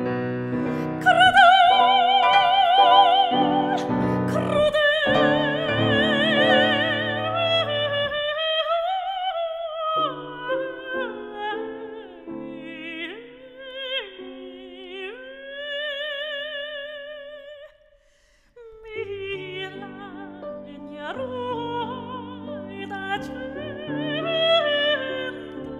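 Soprano singing an Italian art song with wide vibrato, accompanied by piano. About a third of the way through, the piano drops out for a couple of seconds and the voice sings alone. About two-thirds through, both pause briefly before going on.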